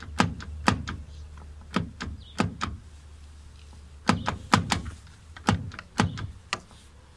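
BMW comfort access exterior door handle being pulled out and let snap back against the door about a dozen times, sharp plastic-and-metal clacks often in quick pairs, as a check that the refitted handle is seated tight.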